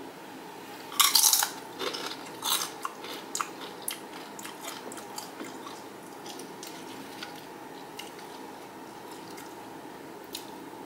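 A Dorito tortilla chip bitten with a loud crunch about a second in, then crunchy chewing that thins out over the next few seconds. A steady faint hum runs underneath, and there is a single small click near the end.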